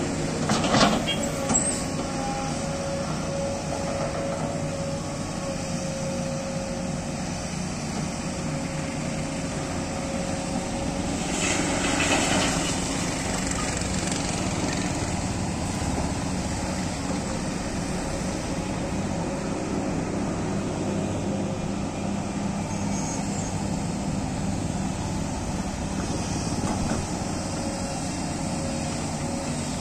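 Sany crawler excavator's diesel engine and hydraulics running steadily while it loads a dump truck, with a steady whine over the engine. About twelve seconds in, a short rush of soil pours from the bucket into the truck's steel bed.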